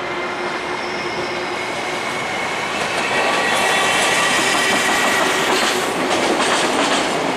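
Electric train running on the tracks below: a steady whine over the rumble, growing louder about three seconds in. From about halfway through, the wheels clack over the rail joints.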